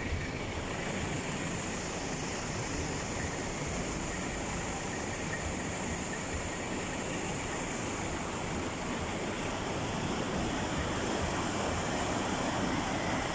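Steady rush of a swollen creek in flood pouring through a ravine, growing a little louder near the end.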